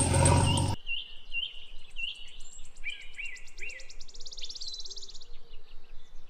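A loud vehicle-like noise cuts off abruptly under a second in, giving way to birds chirping: a series of short rising chirps, then a fast high trill about three seconds in.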